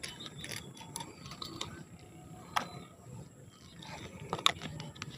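Fishing reel being wound in to retrieve the line, its mechanism ticking irregularly, with a sharper click about two and a half seconds in and a louder one near the end.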